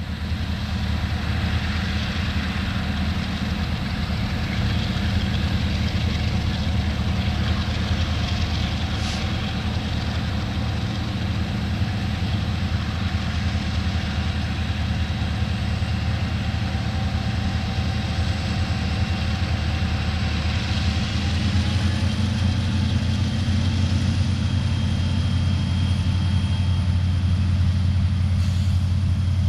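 Diesel-electric freight locomotives approaching, led by an EMD SD40-2 with its 16-cylinder two-stroke prime mover: a steady low engine drone with a thin whine over it. About two-thirds of the way through the drone grows louder and the whine steps up in pitch, as the lead unit works harder and sends up dark exhaust.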